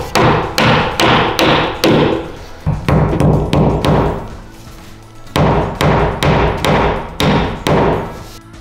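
Hammer driving cap nails through Tyvek house wrap into OSB sheathing: quick runs of strikes about two or three a second, with a short pause about halfway, over background music.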